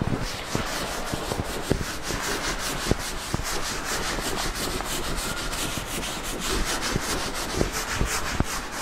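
Chalk drawings being wiped off a blackboard: rapid back-and-forth rubbing strokes across the board, several a second, with a few light knocks.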